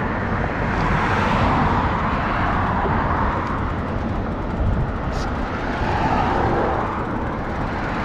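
Road traffic going by, a steady wash of car and tyre noise that swells and fades as vehicles pass.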